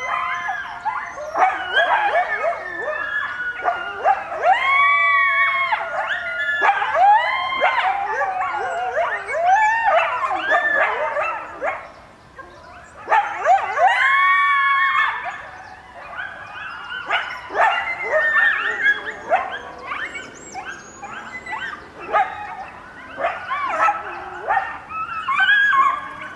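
A coyote family howling and yipping together in a chorus set off by a siren, many overlapping calls sliding up and down in pitch and breaking off. The chorus drops into a brief lull about twelve seconds in, then starts up again.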